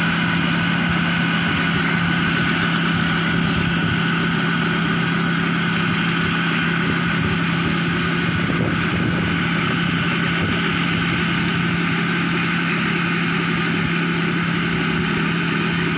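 Kaset Pattana small rice combine harvester's engine running steadily under load as it cuts lodged rice: a constant drone with a low, unwavering hum.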